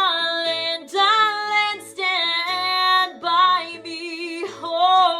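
A woman singing a series of long held notes with a wavering vibrato, without clear words, over a ukulele accompaniment.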